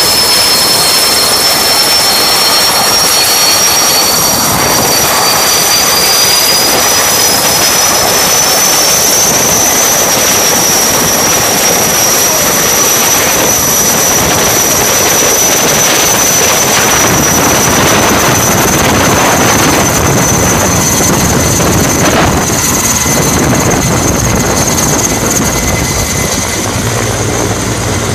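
Turbine-engined firefighting helicopter running close by, its high turbine whine rising in pitch over the first ten seconds or so and then holding steady over the noise of the engine and rotor.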